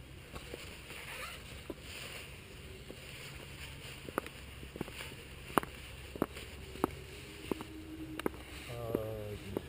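Sharp clicks and light knocks from a road bicycle being handled as a wheel is checked, coming one or two a second in the second half, over a low steady rumble. A voice is heard briefly near the end.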